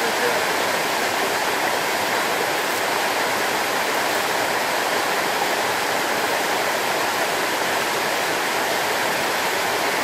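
Waterfall cascading down a rock face and splashing onto rocks into a stream: a steady, unbroken rush of water.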